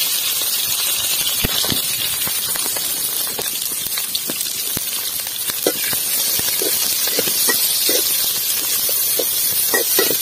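Sliced onions sizzling in hot oil in a metal kadai, a steady frying hiss, with scattered clicks and scrapes from a metal ladle stirring them.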